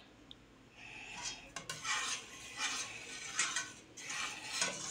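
Metal spoon stirring thick tomato sauce in a stainless steel pot, scraping and swishing against the bottom and sides in repeated strokes, with a few light clinks of spoon on pot. The stirring starts about a second in.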